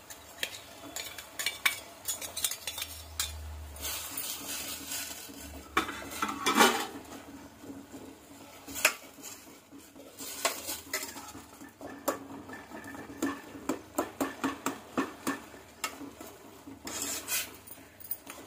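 Steel spoon stirring vermicelli in a stainless-steel pot, scraping and clinking against the pot's sides and bottom in quick, irregular strokes that come faster in the second half.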